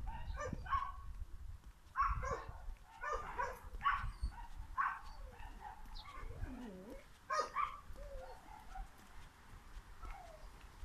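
A series of short animal calls, each lasting a fraction of a second and spaced about a second apart, over low rumbling handling noise.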